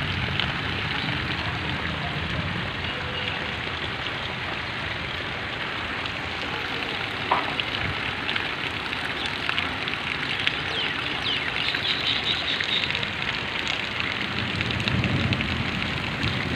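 Heavy rain falling on muddy ground and puddled runoff: a steady hiss full of small, dense drop patters.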